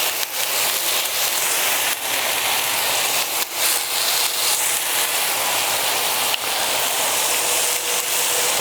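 Onions and beef burger balls sizzling steadily on a hot oiled griddle, with a few small pops of spattering fat.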